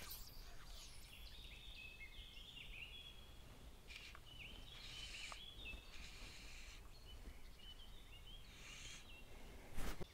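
Faint songbirds singing in short chirps and warbles that come in clusters, over a low steady outdoor hiss. A single sharp click or knock sounds just before the end.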